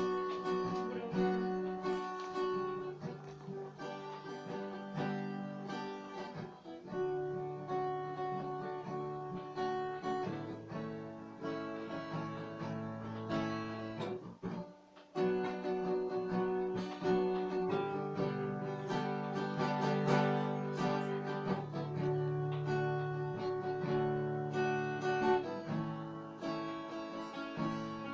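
Acoustic guitar music, chords held and changing every second or two, with a brief break about halfway through.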